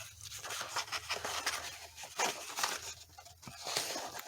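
Scissors cutting through craft paper: a run of short, irregular snips.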